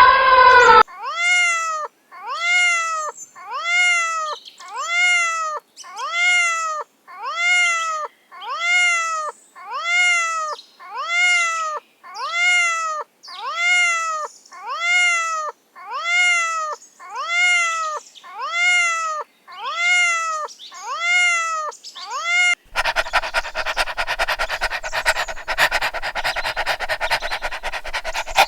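A cat meowing over and over, about one meow a second, each call rising and falling in pitch and all of them alike. In the last few seconds the meows stop and a dog pants rapidly.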